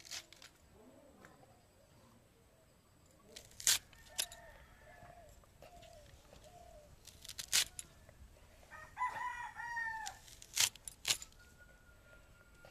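A rooster crows once, a call of about a second and a half, after a hen clucks in a short run of calls. Several sharp clicks are heard, the loudest sounds, as taro stalks are cut into pieces against a curved hand blade.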